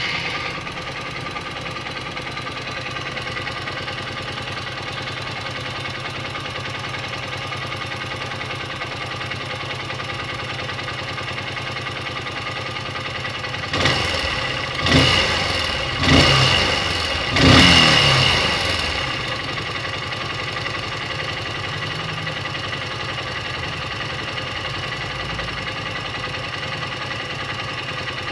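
Honda XR150L's air-cooled single-cylinder four-stroke engine idling, revved four times in quick succession about halfway through, then settling back to idle. It is being run to show a noise in the engine.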